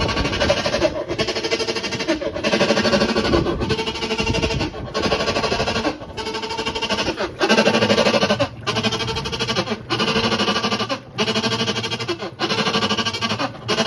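Kenmore washing machine making a loud, pitched grinding groan in repeated strokes, each cut by a brief pause about every second and a quarter. The noise is teeth grinding on the pulley.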